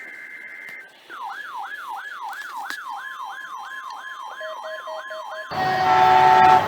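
The tail of an Emergency Alert System data-header burst, a short high two-tone warble. It is followed by a siren-like alert of about a dozen rapid falling pitch sweeps over a steady tone, which cuts off sharply about five and a half seconds in to louder noise carrying steady tones.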